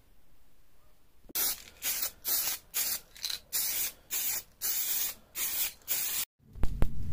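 Aerosol can of filler primer spraying in about ten short hissing bursts, each under half a second, then a few sharp knocks near the end.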